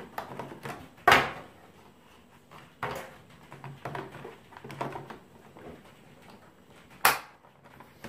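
Plastic exhaust-filter grille cover of a Philips PowerCyclone 5 canister vacuum being fitted back onto the machine's body: sharp plastic clicks, the loudest about a second in and another near the end, with soft handling rattles between. The vacuum is switched off.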